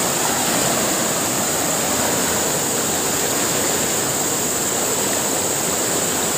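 Fast-flowing river water rushing steadily past the bank, an even hiss of current with no pauses.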